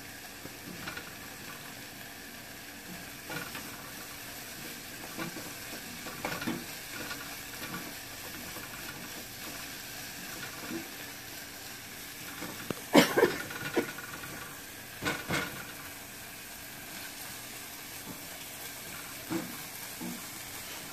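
Sliced red onions sizzling gently in butter in a small saucepan, stirred with a silicone spatula that scrapes and taps against the pan, with two louder knocks partway through.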